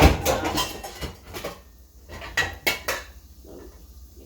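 Cookware and metal utensils clattering: a loud clank at the start, a run of knocks and scrapes over the next second or so, then three sharp clinks a little past halfway.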